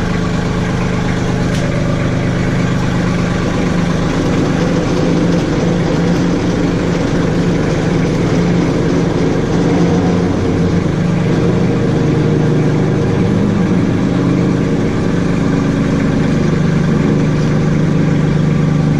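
An engine idling steadily, its pitch shifting slightly a couple of times.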